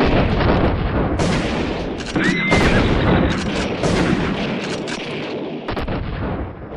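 Battle sound effects: a dense, continuous din of musket volleys and cannon fire, with many sharp shots packed close together.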